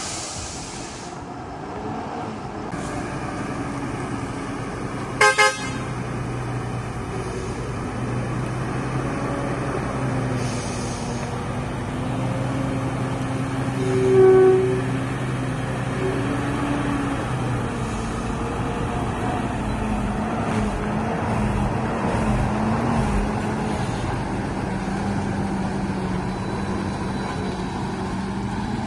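Heavy truck engine running steadily, its pitch rising and falling a little. A vehicle horn honks once about halfway through, the loudest sound. Two short sharp sounds come about five seconds in.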